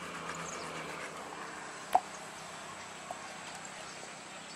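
Faint outdoor background with one brief, sharp sound about two seconds in and a softer short one about a second later.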